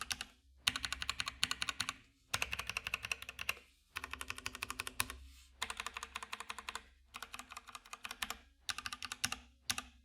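Mechanical keyboard with Kailh switches being typed on fast, in about seven quick runs of keystrokes with short pauses between them.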